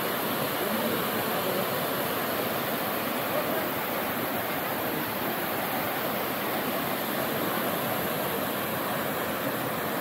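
Abbey Falls, a waterfall: a steady, unbroken rush of falling water.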